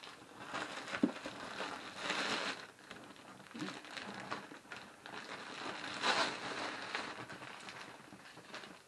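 Black plastic bag crinkling and rustling as it is pulled off a cardboard parcel box. It is loudest about two seconds in and again about six seconds in.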